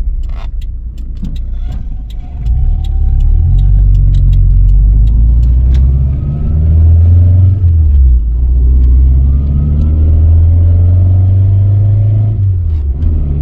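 Toyota Tercel wagon accelerating up through the gears, the engine tone rising and dropping back at two gear changes. Light ticking in the first couple of seconds, before the engine note swells.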